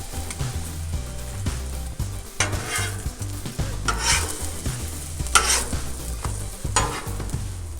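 French toast and an egg frying on a propane flat-top griddle, with a steady sizzle over a low rumble, broken about four times by the short scrape of a metal spatula on the griddle top.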